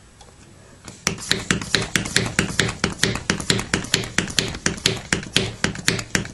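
VacuumSaver hand vacuum pump being worked quickly on a vacuum canister, a rapid, even run of sharp clicks at about four to five strokes a second starting about a second in, drawing the air out of the canister.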